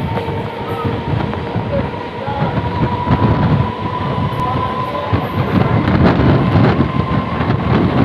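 An EMU electric local train running along the track, heard from its open doorway: a continuous rumble of wheels on rails, with a thin steady whine above it.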